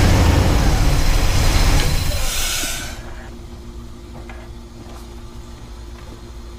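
Truck engine running loud, then dropping to a quieter steady idle about three seconds in. The engine is drawing vacuum through its PCV line to suck down air-spring bags.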